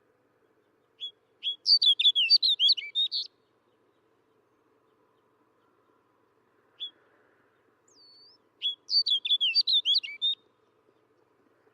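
Snow bunting singing: two short song phrases of rapid, high warbled notes, each about two seconds long, with a single short note between them.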